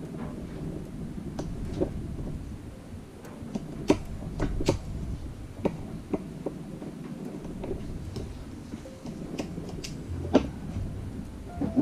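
Hands working a Dyneema rope with a metal fid and pliers: irregular small clicks and knocks of the metal tools against the rope and cutting board, over a steady low rumble.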